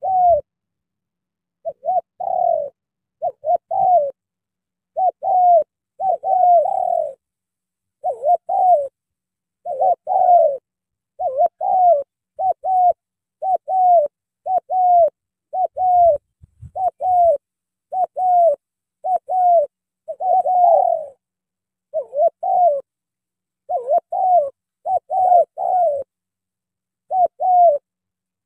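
Spotted doves cooing close by: a long run of short coo notes, each falling in pitch, mostly in clusters of two or three, repeated steadily with brief pauses between clusters.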